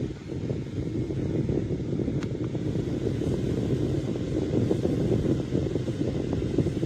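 Airflow from a JISULIFE handheld USB mini fan buffeting the microphone: a loud, unsteady low rumble of wind noise.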